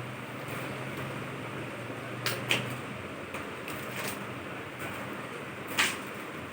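A delivered package being handled: a few short clicks and rustles, the loudest about two and a half seconds in and again near the end, over a steady low hum.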